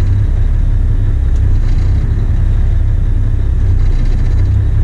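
A heavy truck's engine running with a steady low rumble, heard from inside the cab, as the truck is put in gear against tires frozen to the ground.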